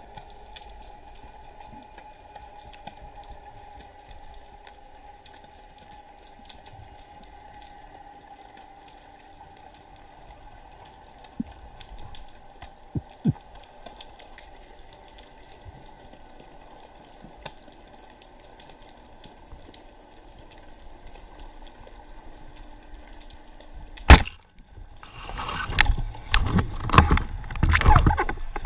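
Underwater ambience: a steady faint hiss with faint humming tones and a few light clicks. About 24 seconds in comes a single sharp snap, then loud irregular knocking and splashing.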